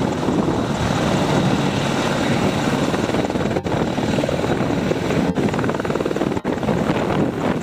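AH-64E Apache attack helicopter's twin turboshaft engines and main rotor running at lift-off power as it rises into a hover, a loud steady rotor beat. The sound drops out for an instant three times.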